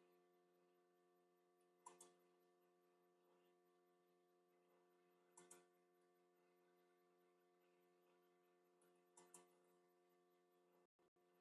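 Near silence: a faint steady electrical hum, with a faint double tick about every three and a half seconds.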